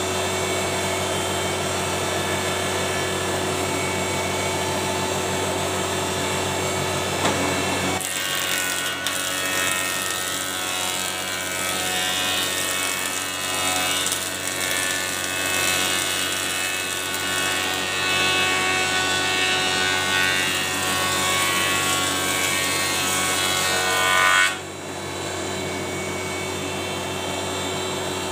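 Stationary thickness planer, modified for a slower feed, running steadily. About a third of the way in a board goes through and the cutterhead takes it with a louder, rougher cutting noise for about sixteen seconds. Near the end the planer drops back to running free.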